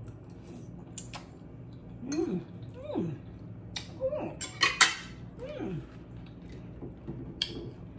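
A woman chewing and humming short falling 'mmm' sounds of approval as she eats, four or five times. Near the middle, a few sharp clinks of a metal fork against a plate.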